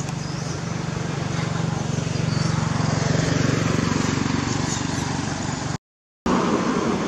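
Steady low engine hum of a motor vehicle running, under a broad wash of outdoor noise; the sound drops out for about half a second near the end.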